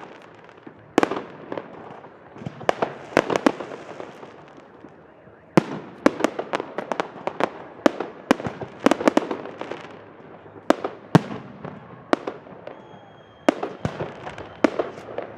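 Aerial firework shells bursting overhead in a rapid, irregular series of sharp bangs, with crackling between them.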